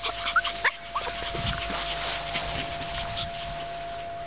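Shih Tzu–Maltese puppies giving a few short, high yips and whimpers in the first second, then an even hiss with a faint steady tone underneath.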